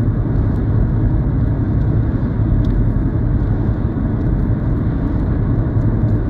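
Steady low rumble of a car cruising at about 80 km/h, tyre and engine noise heard from inside the cabin.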